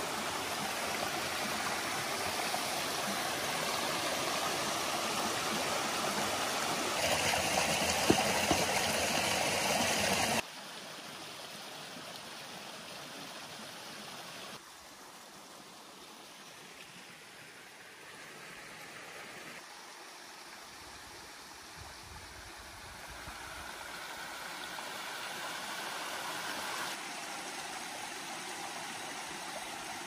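Mountain stream running over granite slabs and rocks, a steady rush of water with splashing trickles. Louder for the first ten seconds, then it drops abruptly and shifts in level several times.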